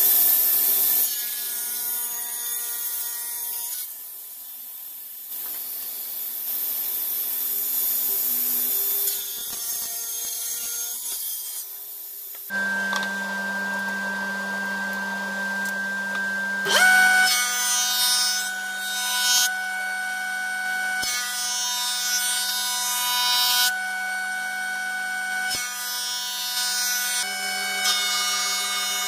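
Stationary woodworking machines running and cutting a wooden board: first a table saw, then a jointer-planer. Each machine gives a steady motor tone over the noise of the cut. The sound changes abruptly every few seconds from one short clip to the next.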